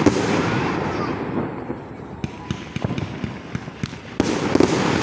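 Fireworks going off in rapid succession, a dense crackle of pops and bangs. It thins out about a second and a half in and comes back loud just after four seconds.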